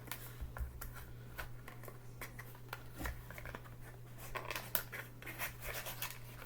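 A knife blade cutting and scraping at packaging that the knife is glued into, giving scattered light scratches and clicks.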